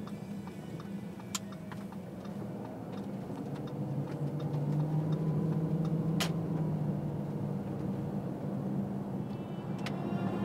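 Car towing a caravan, running along the road: a steady low engine and road hum that grows louder about halfway through, with a few sharp clicks.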